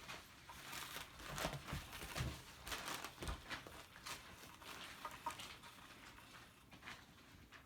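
Cats playing with a toy: irregular taps, scuffs and rustles of paws and the toy on the floor, with a few heavier thumps in the first half.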